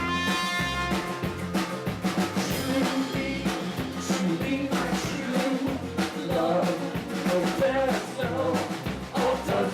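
A band playing a rock-style song with a steady drum beat and a bass line, in a passage without sung words.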